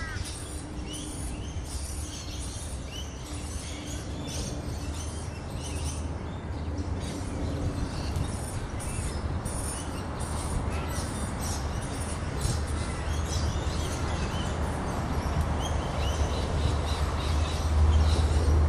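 Australasian figbird chicks in the nest giving short, high chirps over and over, over a low traffic rumble that grows louder near the end.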